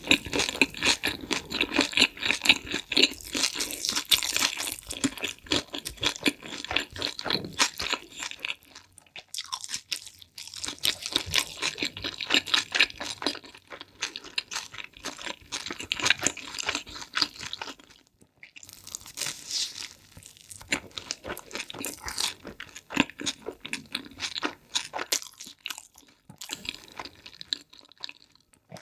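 Close-miked chewing and crunching of pizza crust, in runs of crisp crackles with a few short pauses between mouthfuls.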